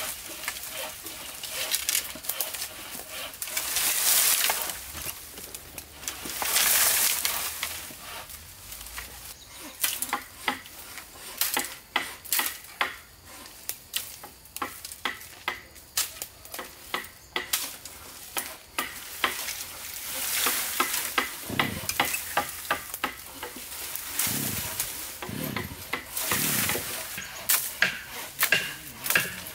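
Hand work on timber: a few long scraping strokes about a second each in the first eight seconds, then a long run of quick, light knocks and taps on wood.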